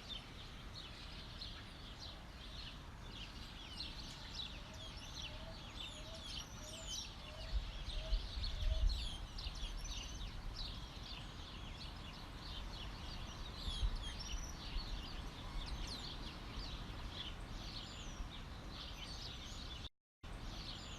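Countryside birdsong: many small birds chirping and twittering in a steady chorus, with a run of about seven short, lower calls in the first half. A low rumble comes about eight seconds in, and the sound cuts out for a moment near the end.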